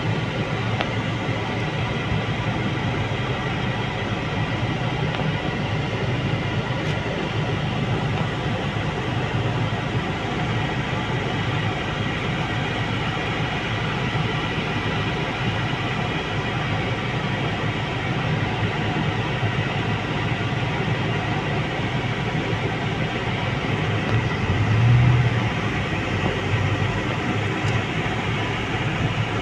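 Steady low engine rumble heard from inside a vehicle's cabin, with a brief louder low surge near the end.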